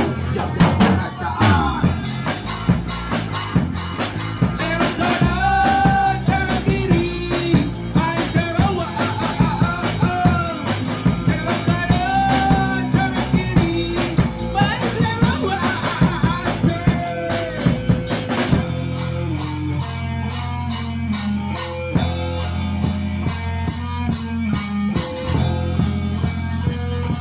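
A cover song: drum kit and guitar with a singing voice, the voice dropping out about two-thirds of the way through and leaving the band playing.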